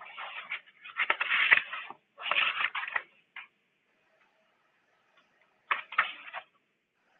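Computer keyboard typing in three bursts of rapid clicking, the last after a pause of a couple of seconds, heard over a thin video-call line.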